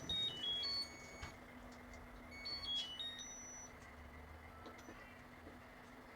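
Electronic beeper playing two short runs of high tones that step up and down in pitch, the first right at the start and the second about two and a half seconds in, over a steady low hum.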